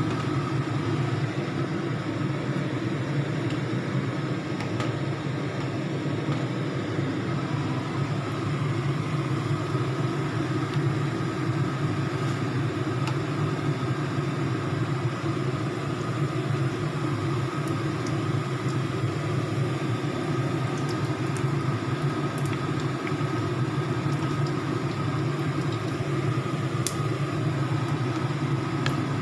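A steady low machine hum, with faint ticks of battered shrimp crackling in hot frying oil in the second half.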